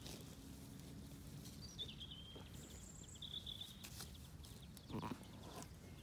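Birds singing, with high chirps and a short trill in the first half, and a brief bleat from a Zwartbles sheep about five seconds in.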